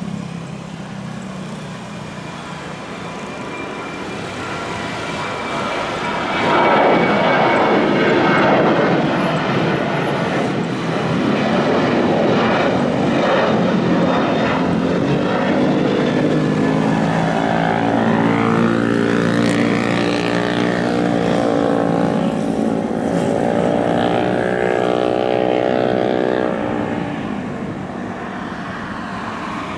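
Boeing 737's twin turbofan engines at climb power just after takeoff: a loud, steady jet noise that swells about six seconds in, holds, and eases near the end. Gliding, shifting tones run through the rumble in the later part as the jet passes and climbs away.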